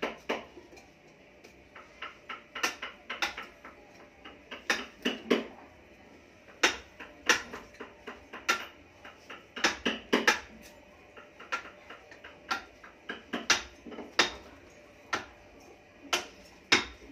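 Hammer striking a wood-carving chisel as it cuts into a wooden statue: sharp taps at an uneven pace of about two a second, often coming in quick pairs or threes with short pauses between.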